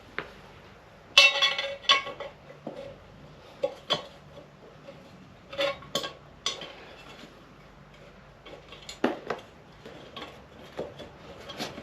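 Steel tyre irons clinking and clanking against a motorcycle's cast wheel rim during a tyre change, about a dozen irregular metal knocks. The loudest, about a second in, rings on briefly.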